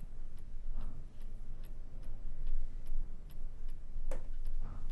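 A clock ticking steadily in a quiet room, evenly spaced clicks, with one slightly louder click about four seconds in.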